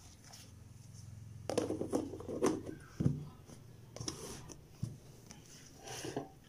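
Plastic lid being handled and fitted onto a plastic food container: a string of irregular clicks, knocks and rustles. A low steady hum underneath stops about three seconds in.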